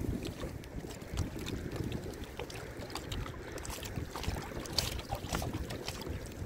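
Wind rumbling on the microphone, with small waves lapping and slapping against a kayak's hull in scattered light ticks.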